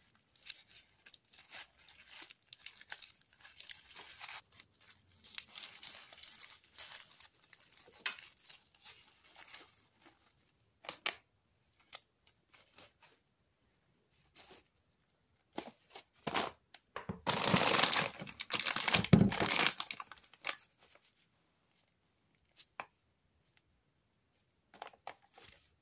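Thin white paper wrapped around a cheese puff being unwrapped and torn by hand, rustling and crinkling in short bouts. The loudest stretch is a long burst of crumpling and tearing about 17 to 20 seconds in, followed by a few faint rustles.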